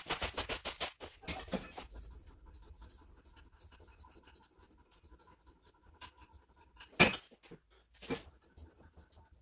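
Gym equipment being handled: a quick run of clicks and rustling at the start, then two sharp knocks about a second apart as a metal cable handle is set up at an armwrestling table.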